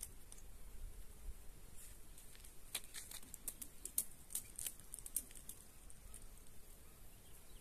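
Faint, irregular light clicks and crackles over a low rumble.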